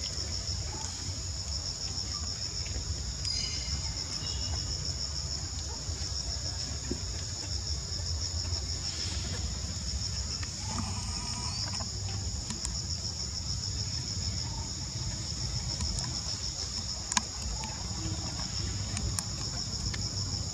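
Steady, high-pitched chorus of insects with a fine pulsing trill, over a low rumble. A few faint short chirps come through, and a single sharp click about 17 seconds in.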